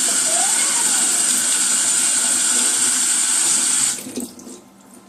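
Tap water running into a sink, a loud steady rush that shuts off about four seconds in, followed by a few faint clinks.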